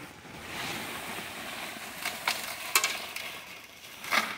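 Gem ore dirt and gravel pouring out of a woven sack onto a wire-mesh sifting screen: a steady hiss of sliding dirt, broken by a few sharp clicks of stones landing.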